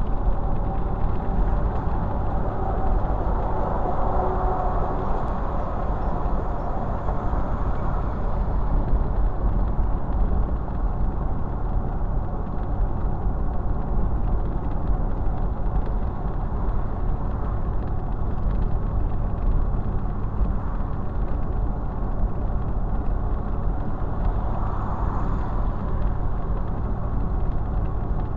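Steady road noise from a car on the move, heard from inside the cabin: a continuous low rumble of tyres and engine. It swells for a few seconds about four seconds in and again near the end.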